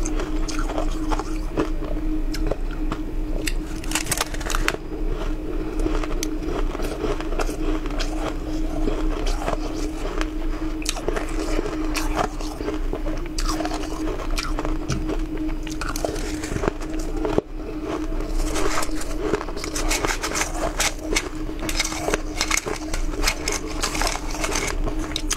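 A person crunching and chewing mouthfuls of fluffy shaved ice close to the microphone, a dense run of crisp, irregular crunches, with the spoon now and then scraping the metal bowl.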